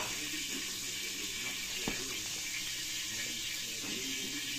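Steady rushing hiss like water running from a tap, with a single faint click about two seconds in.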